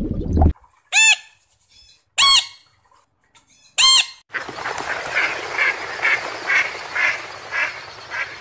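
Water bubbling cuts off half a second in, then three loud, harsh squawks of a blue-and-gold macaw a second or so apart. Mallard ducks then quack in a run of short calls, about two a second, over a steady watery hiss.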